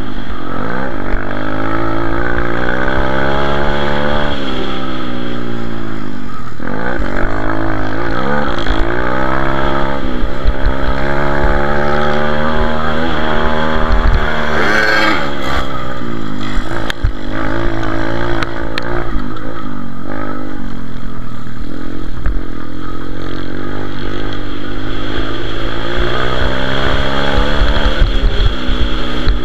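Pit bike's single-cylinder engine heard onboard while racing, its pitch climbing hard and dropping away again and again as the throttle is opened and closed. A brief rush of noise comes about halfway through.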